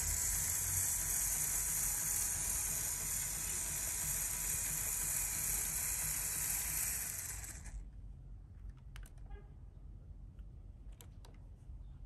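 LEGO Technic RC chassis running: its electric motor drives the plastic gear train with a steady, high whirring that stops abruptly about eight seconds in. A few light plastic clicks follow near the end.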